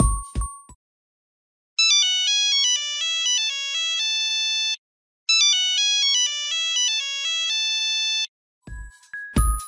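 A monophonic Nokia mobile phone ringtone, played twice with a short gap between. It is a quick run of buzzy single beeping notes ending on a held note. A fading drum-backed tune sits at the very start, and another percussive tune with low thumps comes in near the end.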